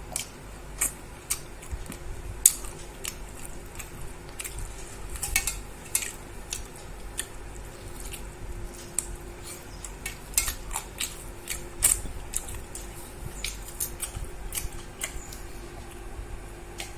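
Irregular light clicks and clinks of a meal of rice and chicken curry being eaten from a plate, one or two a second, over a faint steady hum.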